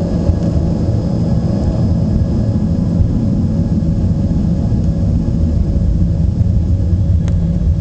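Embraer ERJ-145 regional jet's Rolls-Royce AE 3007 turbofans running: a steady, loud low rumble with thin, constant whine tones above it. There is a single brief click near the end.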